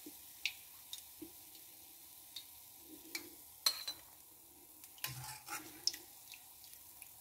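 Gulab jamun frying in a pan of hot oil with a faint steady sizzle, while a wire-mesh strainer lifts and drains them, giving scattered light clinks and knocks against the pan and plate. The sharpest clink comes a little past halfway, and a short run of knocks with a dull thud follows about five seconds in.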